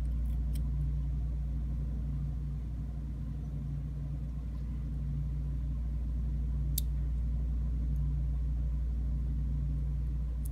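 A steady low hum with a sharp click about two-thirds of the way through and a fainter click near the start.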